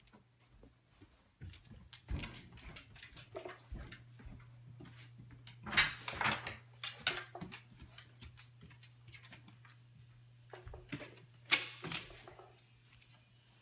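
Irregular footsteps and a dog's claws clicking and knocking on stairs and a hard floor, loudest in a cluster about six seconds in and again about twelve seconds in, over a steady low hum.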